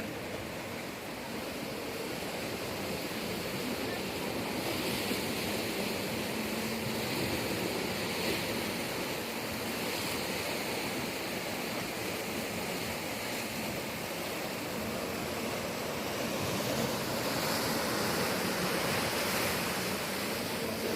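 Sea waves washing in, a steady rushing surge that slowly swells and eases, loudest a few seconds before the end.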